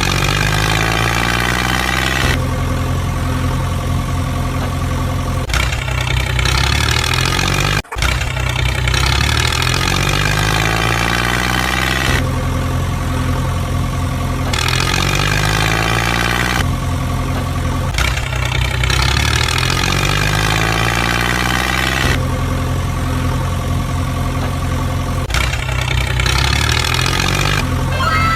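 Looped heavy-vehicle engine sound effect: the engine revs up, then runs steadily, and the cycle repeats every few seconds with a brief cut about eight seconds in. A few falling chirps come in at the very end.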